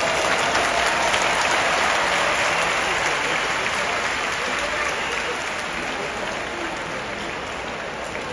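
Large arena crowd applauding: dense, steady clapping that eases off slightly toward the end.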